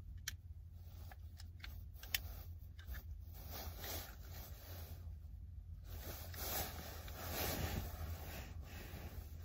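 Faint handling noise as a pistol is picked up and aimed: rustling of a nylon jacket and a few sharp small clicks, the clearest about two seconds in, over a low steady hum.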